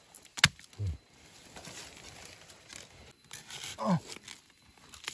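Rustling and crackling of dry leaves and plant stems being handled, with one sharp snap about half a second in. Two short grunt-like voice sounds, one just after the snap and one near the end.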